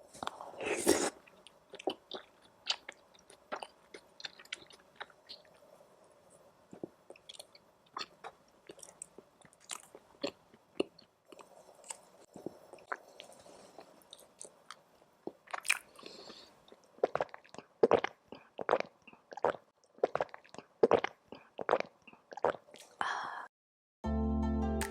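Close-up eating sounds: food being bitten and chewed, with sharp, irregular crunches and clicks that come thicker and louder in the second half. Music starts near the end.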